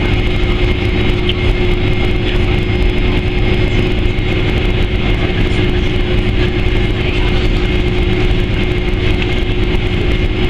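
Boeing 767-300ER jet engines heard from inside the cabin as the airliner taxis: a steady, unbroken drone with a constant whine running through it.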